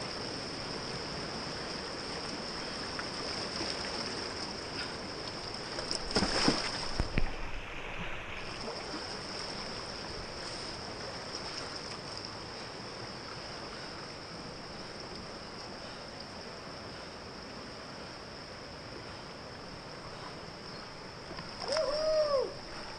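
River water rushing around a whitewater kayak as it is paddled downstream, with paddle splashes; a louder splash about six seconds in. A short call from a voice near the end.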